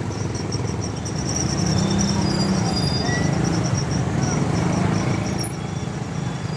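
Busy street-market bustle with a motorcycle engine running close by, swelling a second or two in and easing off near the end, over steady traffic noise. A faint high rapid chirping runs underneath.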